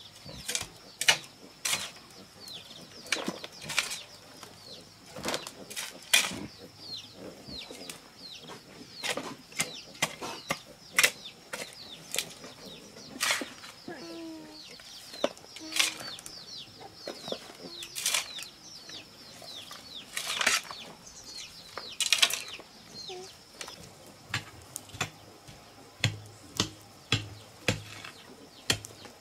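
Hoe blade chopping into and scraping a clay soil bank: sharp, uneven strikes every second or two, over a steady high thin whine and small chirps in the background.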